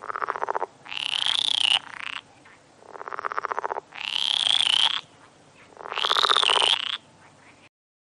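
Repeated animal calls: rapidly pulsed, croaking calls taking turns with higher, arching calls, each about a second long, cut off abruptly near the end.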